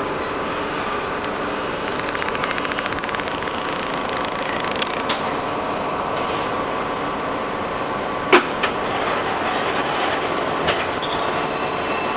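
Shizuoka Railway 1000 series electric train, built by Tokyu Car in 1976, heard from inside the driver's cab as it pulls away from a stop and runs: steady running noise of motors and wheels on rail, with a few sharp clicks, the loudest about eight seconds in.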